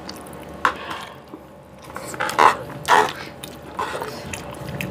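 Fork and spoon scraping and clinking against a serving tray as noodles are scooped up: several short scrapes a second or so apart.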